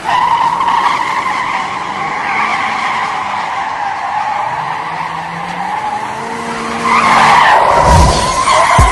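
Tyre squeal held for several seconds, a sustained screech that grows louder near the end, with a deep rumble about eight seconds in.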